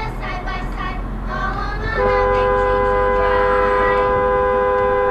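A steady two-tone vehicle horn held in one long blast of about three seconds, starting about two seconds in, after a stretch of music with singing.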